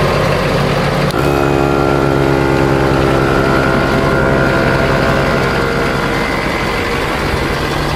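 A pickup truck's engine idles steadily throughout. About a second in, a click and a ViAir 400P portable 12-volt air compressor switches on and runs with a steady hum, then stops about six seconds in, which the owner takes to be like a tank compressor that stops once it has filled.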